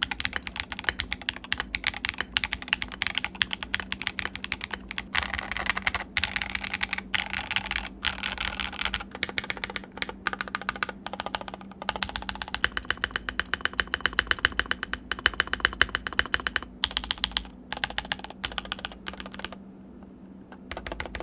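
Fast, continuous typing on a Mason60 custom mechanical keyboard with an engineered-stone case, a stream of keystroke thocks with a few brief pauses. The board is tray-mounted with the middle standoffs left out and O-rings added for a softer typing feel.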